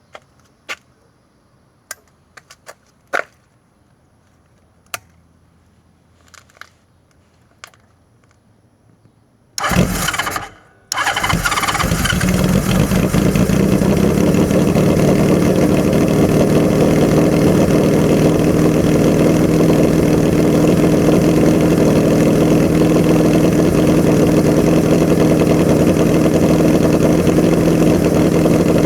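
1981 Honda CB650 inline-four with Mikuni VM34 carbs and a Hindle 4-2-1 exhaust being started: a few scattered clicks, then the starter cranks for about a second, stops briefly, and the engine catches about eleven seconds in and settles into a steady idle.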